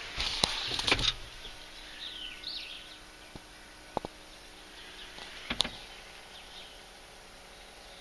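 Quiet handling noise inside a cab: rustling and a few sharp clicks, loudest in the first second, with a short high chirp about two seconds in.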